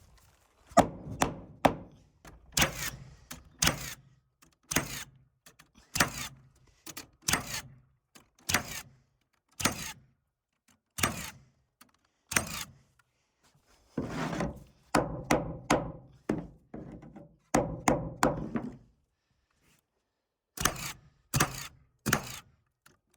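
A nail gun firing nails through subfloor sheathing into the joists: a long run of sharp thunks, mostly about half a second apart, thickest in the middle and with a short pause near the end.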